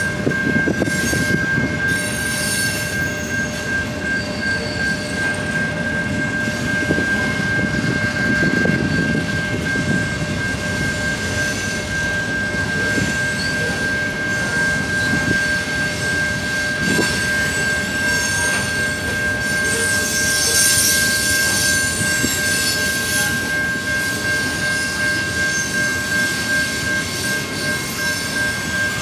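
Freight train cars rolling past, their wheels rumbling and clattering on the rails, with a steady high-pitched squeal running throughout.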